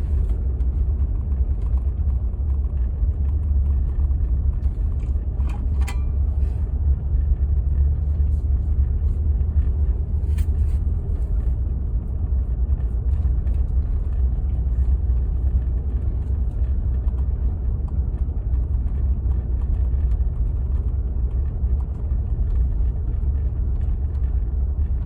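Pickup truck driving on a road, heard from inside the cab as a steady low rumble of engine and road noise, with a couple of brief ticks about six and ten seconds in.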